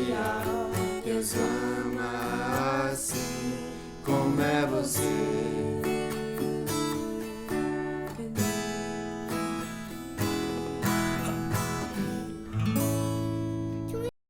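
Acoustic guitar strumming the closing instrumental bars of a worship song. The sound cuts off abruptly near the end.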